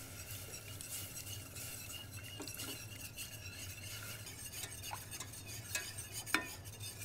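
Wire whisk stirring and scraping around a stainless steel saucepan as chicken stock is whisked into a butter-and-flour roux for a sauce, with small metallic clicks as the wires touch the pan and a sharper tap a little after six seconds in.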